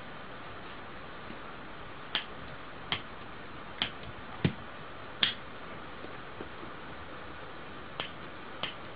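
A lighter's piezo igniter clicked by hand seven times, each a sharp single snap: five roughly a second apart, then two more near the end.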